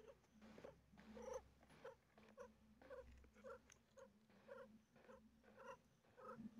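Faint, short breath sounds from a cat in labour breathing hard with her mouth open, a regular rhythm of about two breaths a second.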